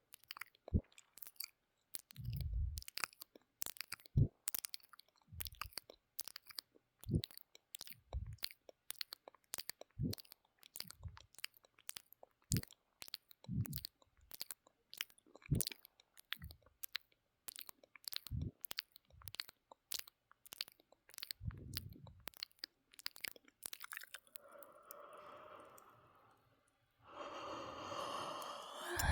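ASMR mouth sounds close to the microphone: a steady run of wet tongue and lip clicks and smacks, about two or three a second, with a few soft low pops. Near the end a breathy voiced sound takes over.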